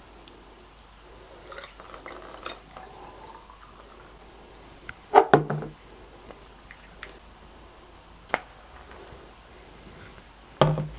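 Liquid trickling faintly through a plastic funnel into a glass bottle, with small clicks and drips. About five seconds in comes a short, loud sound of a woman's voice, and a few seconds later a single sharp click.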